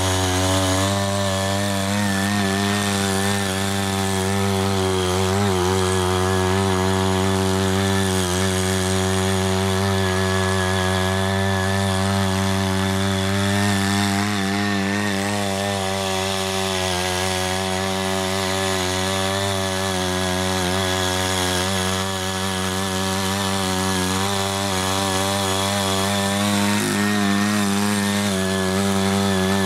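The small 5-horsepower engine of a Ching Yee CY80 folding rotary cultivator runs steadily at working speed while its ten rotary tines till the soil.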